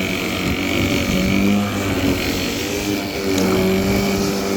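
Worx 42 cm cordless battery lawnmower running while cutting grass: a steady electric-motor and blade hum with a high whine, its pitch wavering slightly as the grass loads the blade.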